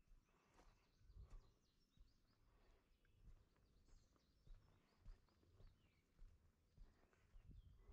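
Faint bird chirps and twitters over near-quiet woods, with soft footsteps recurring every half second to a second.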